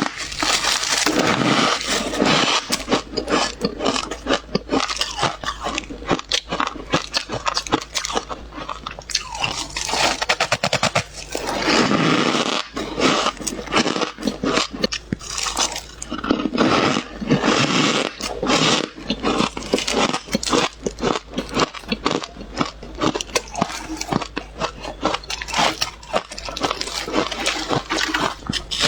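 Close-miked bites into squeaky ice: a fast, dense string of sharp cracks and crunches, with a few longer, louder crunching stretches.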